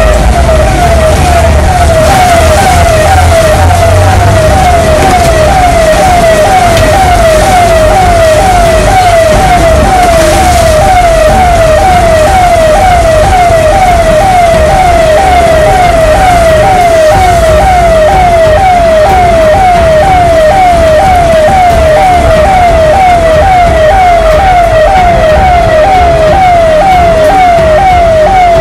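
Siren-like alarm tone sweeping down in pitch and repeating evenly, two or three times a second, loud and unbroken throughout, over a steady hiss. A low rumble sits under it for the first few seconds.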